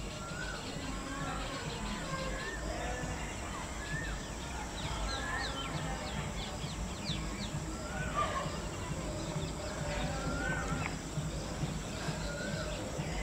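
Outdoor ambience with birds calling: short rising-and-falling whistled notes repeat about once a second. A run of quick high chirps comes in the middle, all over a steady low rumble.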